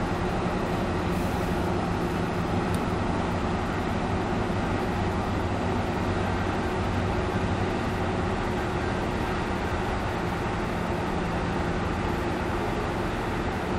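Steady road noise inside a BMW's cabin at highway speed: tyre and wind rush with a low engine hum. The car holds an even speed under adaptive cruise control.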